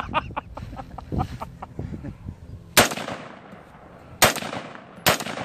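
Rumble of a 5 lb Tannerite explosion dying away under short whooping cries from onlookers. Then three sharp rifle shots from an AR-15 with echoing tails, the first a little under three seconds in and the last two about a second apart near the end.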